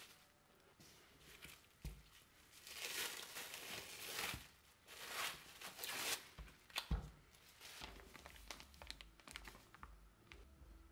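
Plastic cling film crinkling and rustling as it is peeled off a ball of dough, in several bursts over a few seconds, with a single sharp thump shortly after.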